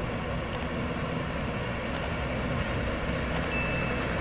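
A bus engine running steadily as the bus drives slowly through floodwater, heard as a continuous low rumble. Over it come three faint clicks and a short high beep near the end.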